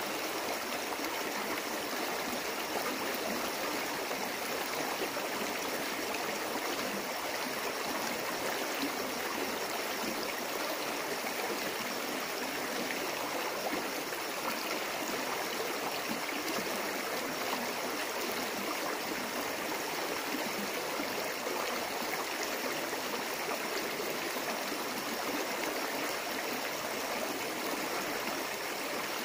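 Shallow stream flowing over rocks: a steady, even sound of running water.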